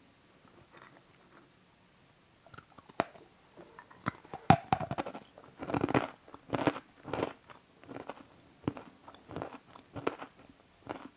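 A person chewing a crunchy chocolate-coated nut bar close to the microphone. A few crunches start about two and a half seconds in, with the loudest about halfway, then steady chewing at about two chews a second.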